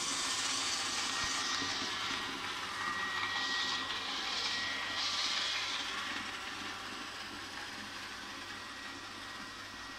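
Small robot vacuum cleaner running, its fan and brushes making a steady whirring hiss with a faint thin whine, growing quieter toward the end as it moves away across the floor.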